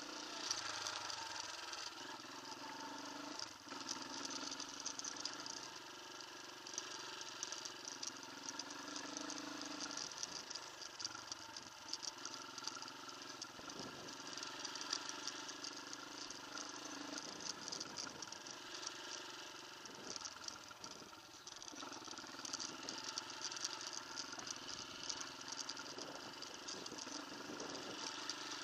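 Off-road motorcycle engine running steadily while riding, with a constant hiss of wind and ground noise over it.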